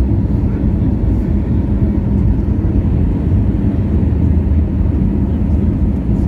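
Steady low cabin rumble inside an Airbus A320-200, engine and airflow noise, with a faint steady hum beneath it.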